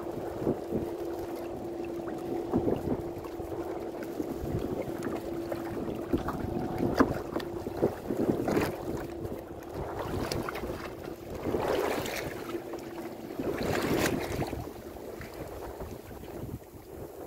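Water splashing against the hull as a gaffed yellowfin tuna thrashes at the side of the boat, with a few louder splashes in the second half. Under it a steady low hum and wind buffeting the microphone.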